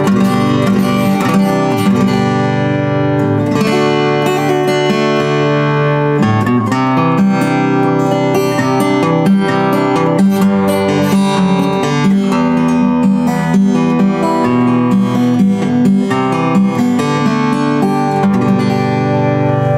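Handmade acoustic guitar with peacock mahogany back and sides and an X-braced Sitka spruce top, freshly strung, being played: ringing chords with picked notes that change every second or so.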